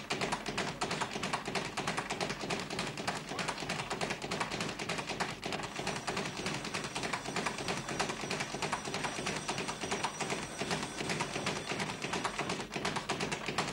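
Dense, rapid tapping: many light knocks a second without a break, stopping near the end.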